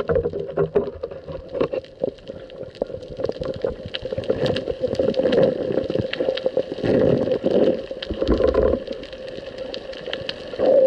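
Underwater sound heard through a camera housing: a steady crackle of sharp clicks with several louder surges of gurgling water noise, over a faint steady hum.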